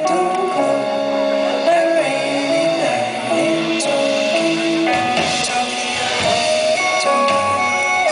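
Live smooth-jazz band playing an instrumental passage: a saxophone carries a melody over keyboard, upright bass and drum kit.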